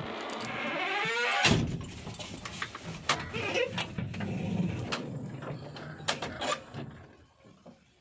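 Metal cab door of a JCB backhoe loader squeaking with a rising pitch as it swings, then banging shut about a second and a half in, followed by scattered clicks and knocks in the cab.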